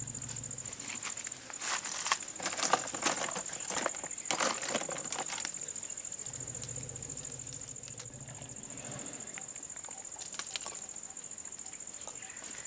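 Plastic packaging and syringes being handled: crinkling, rustling and sharp clicks, busiest over the first few seconds, with a few more about ten seconds in. A steady high-pitched drone runs underneath.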